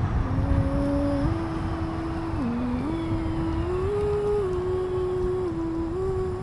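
Background music: a slow melody of held notes stepping up and down, like a hummed or wordless vocal line, over a steady low rumble.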